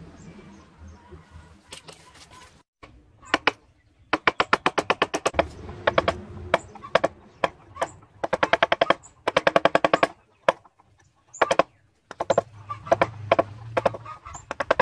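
A carving chisel tapped rapidly into the wood of a carved toy truck body, in several runs of light, sharp strikes at about eight a second.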